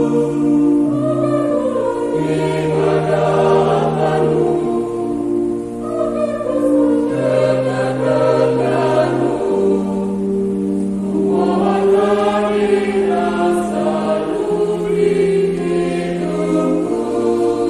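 Church choir singing a hymn in several parts, moving through long held chords.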